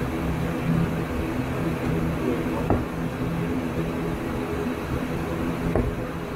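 The ATR 72-600's twin turboprop engines running at ground idle, heard inside the cockpit as a steady multi-toned hum. Two brief clicks sound over it.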